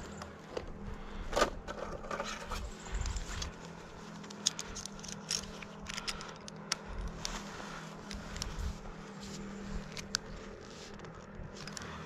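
Gloved hands handling a fibre drop cable and a metal wire-bail drop clamp: scattered clicks, ticks and scrapes of wire and metal parts, with a steady low hum underneath.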